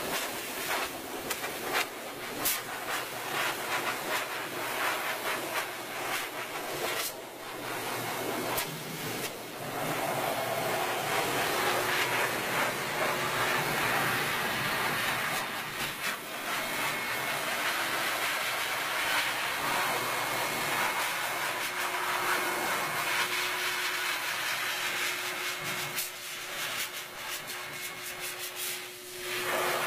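High-velocity dog grooming dryer running steadily, blowing a hiss of air through its hose to blast loose fur out of a dog's coat. A faint steady hum from the dryer joins about two-thirds of the way in.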